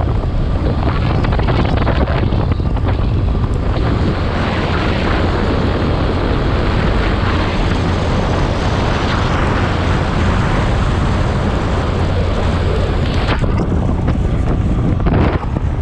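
Wind buffeting the microphone of a moving motorcycle: a loud, steady rumble and hiss, briefly thinning near the end.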